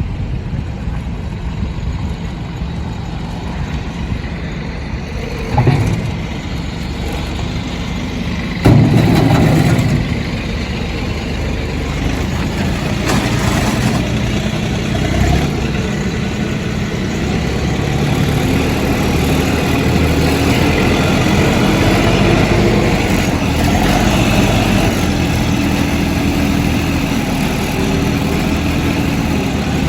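Small farm tractor engine running steadily. There is a brief surge about six seconds in and a louder burst around nine seconds, and the engine speed rises somewhat in the second half.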